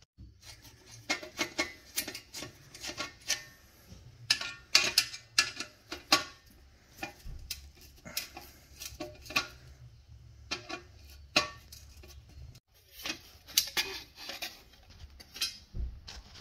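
Flat-tip screwdriver working the screws out of a metal exhaust heat shield: irregular metallic clicks, clinks and short scrapes as the blade bites and slips on the screw heads.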